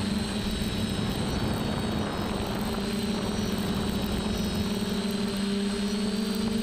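Onboard sound of a radio-controlled FPV model aircraft in flight: its motor and rotor keep up a steady hum at one pitch, with a noisy rush of air underneath.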